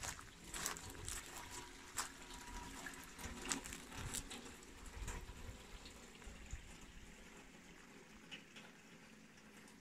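Footsteps crunching on a forest path, irregular light crunches and clicks that thin out after about five seconds, over a faint trickle of water.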